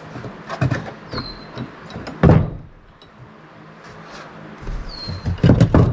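Clunks, knocks and rattles of parts being handled and fitted back into a golf cart's floor around the accelerator pedal assembly. The loudest are a heavy clunk about two seconds in and a quick cluster of knocks near the end.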